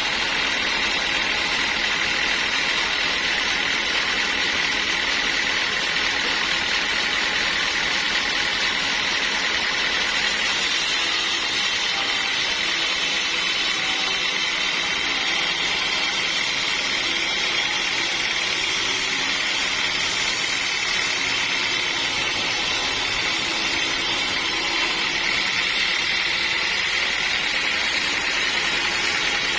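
Sawmill saw running steadily, a continuous mechanical whine with a strong high band that holds without a break.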